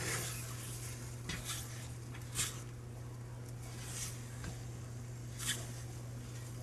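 Spatula scraping and turning cooking egg whites in a Teflon pan: a handful of short swishes, the sharpest about two and a half and five and a half seconds in, over a steady low hum.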